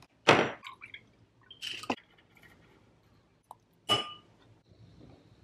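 A metal spoon and a bamboo matcha whisk knocking and clinking against a ceramic matcha bowl on a glass-ceramic hob: a few separate knocks and clinks, the one near the end ringing briefly.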